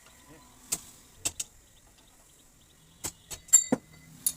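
Sharp metal clinks and knocks from tools and parts as the coil spring is worked off a motorcycle's rear mono-shock absorber: a few separate clanks, with a quick cluster of them about three and a half seconds in.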